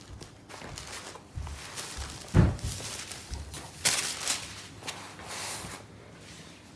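Saree cloth rustling and scraping as it is handled and unfolded by hand, in uneven bursts, with one loud thump about two and a half seconds in.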